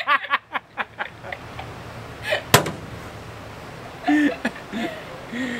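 A man laughing heartily in quick repeated bursts, dying away about a second in. About two and a half seconds in there is one sharp knock, followed later by a few short bits of voice.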